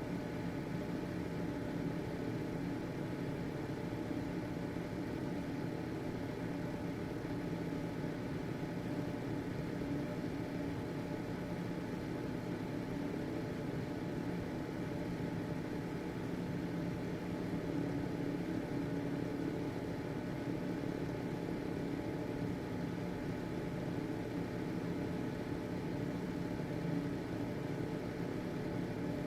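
Household ventilation fan running steadily: an even motor hum with a few steady tones over a soft whoosh of air.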